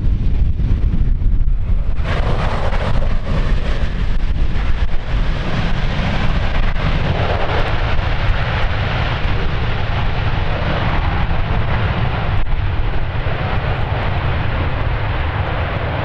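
Jet engine noise from a Boeing 737-800's CFM56 turbofans on landing, coming in about two seconds in and staying loud, over heavy wind rumble on the microphone.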